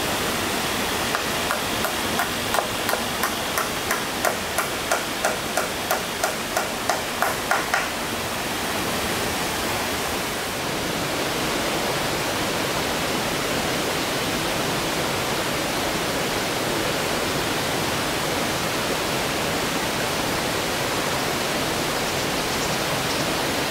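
A run of quick, evenly spaced hammer blows on the wooden frame, about two or three a second, each with a short ring, stopping about seven seconds in. Under it, the steady rush of a waterfall.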